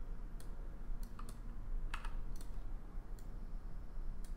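Scattered single clicks of a computer keyboard and mouse, about eight over a few seconds, over a steady low hum.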